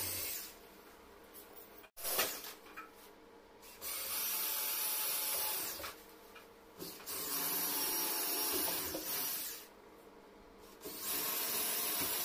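Cordless drill running in repeated bursts of one to three seconds against a kitchen cabinet, with short pauses between the runs.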